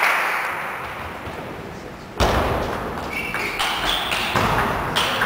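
Table tennis rally: a sudden thud about two seconds in, then the ball clicking off bats and table in quick succession, echoing in the sports hall.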